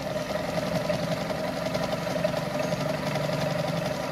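Brother Pacesetter Super Deluxe sewing machine running steadily, sewing a decorative stitch pattern on denim, its needle going in a fast, even rhythm.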